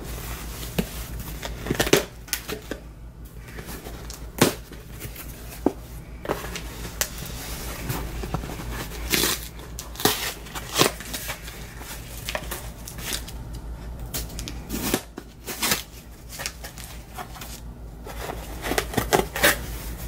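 A parcel being opened by hand: irregular crinkling and rustling of packaging with sharp clicks and short tearing sounds, over a steady low hum.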